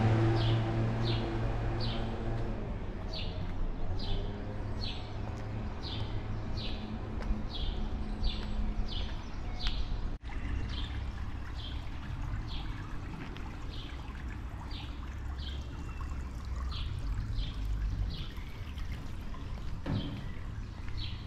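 A bird repeating a short falling chirp about twice a second, over a steady rush of running or splashing water. A low hum runs under it for the first half.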